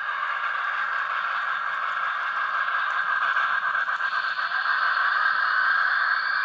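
Broadway Limited PRR T1 model steam locomotive running with its Paragon 3 sound system on, giving a steady hissing, rattling rush of steam-engine sound, with a rising tone coming in about four seconds in.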